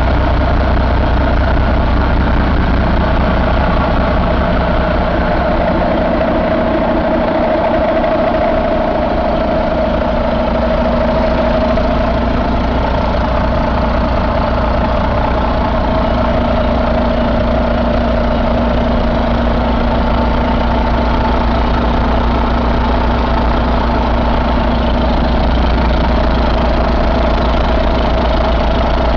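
2012 Volvo D13 inline-six diesel engine idling steadily, heard up close.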